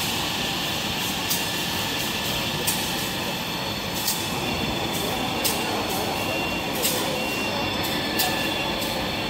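Paper-towel production line running: a steady machine drone and whine, with a sharp click repeating about every second and a half as the machinery cycles.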